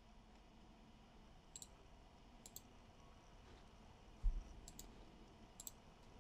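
Faint computer mouse clicks, several of them quick double-clicks, with one low thump about four seconds in, the loudest sound.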